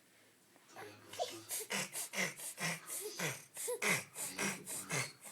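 A person's rapid, breathy vocal sounds: short bursts, about three a second, starting about a second in, playful pig-like snorting or laughing.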